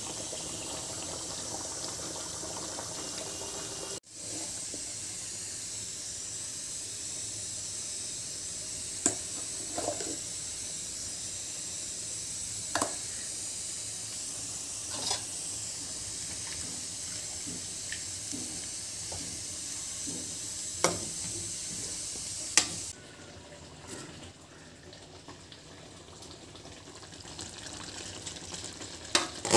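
Chicken curry gravy boiling in an open pan on the stove, a steady hiss with a few sharp clicks scattered through it. The hiss drops quieter about three quarters of the way through.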